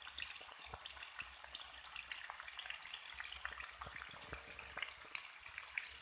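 Pork-stuffed bamboo shoot slices frying in oil in a pan over low heat: a gentle, steady sizzle with many small crackling pops.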